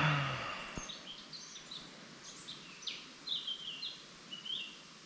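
Wild birds singing: a series of short, high chirps and stepped notes, starting about a second in and stopping shortly before the end. A louder noise fades away at the very start.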